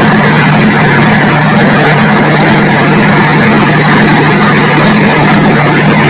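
Diesel engine of a Dynapac pneumatic-tyred road roller running steadily and loud, close by, with a constant low hum.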